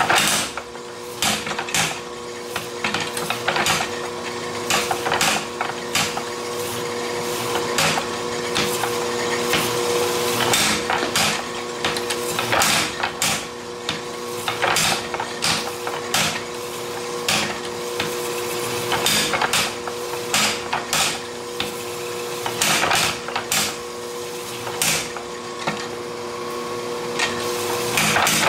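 Mechanical power hammer striking a red-hot 3.5-inch round of 1045 steel, flattening it toward a rectangular bar. Heavy blows come unevenly, about one or two a second, over a steady hum.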